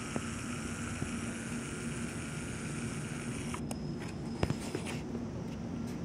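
Steady low hum and hiss of indoor room tone behind a closed window. A fainter higher hiss stops about three and a half seconds in, and there is a single soft click about a second later.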